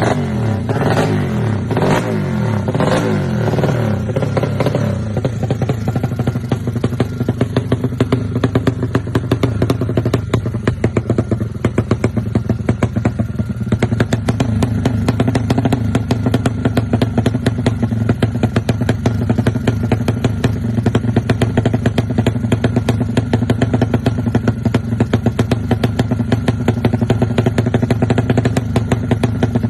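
Yamaha Jupiter motorcycle's single-cylinder four-stroke engine, built up to 200 cc, revved in several quick blips over the first few seconds, then left running at a steady idle with a rapid, even pulsing beat.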